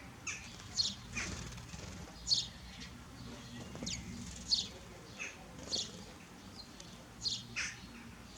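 A small bird chirping repeatedly: about a dozen short, high, falling chirps at irregular intervals, over a low steady hum.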